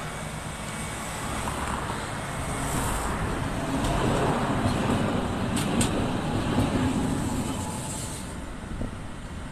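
Electric articulated tram rolling past close by on its rails: a low rumble that builds to its loudest in the middle and then eases off, with two sharp clicks around the middle.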